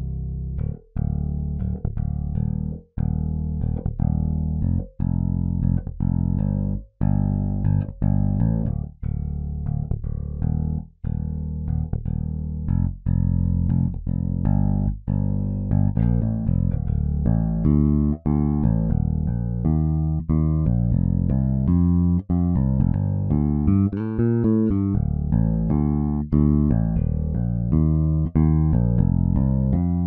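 Solo sampled electric bass from EZbass (Vintage bass, clean DI tone) playing a contemporary R&B groove from MIDI at about 119 BPM, with a short break at the end of each bar. About halfway through it switches to a busier groove with more notes.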